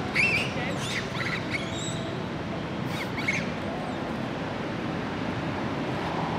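A few short, high-pitched wavering animal calls in the first three seconds, the first one the loudest, over a steady outdoor background hiss.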